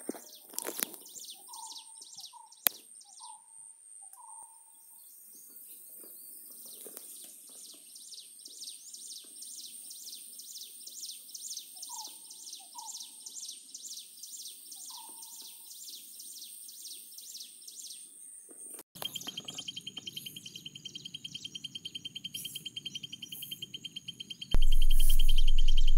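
Outdoor ambience of birds calling and insects chirping in a steady rhythm, with a thin continuous high tone and short repeated bird notes. About three-quarters of the way through this cuts to a steady pulsing high tone, and near the end a much louder music track with a low drone comes in.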